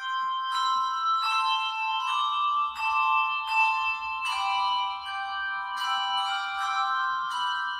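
Handbell choir playing a slow hymn: a new chord of bright bell tones struck about every three quarters of a second, each ringing on into the next.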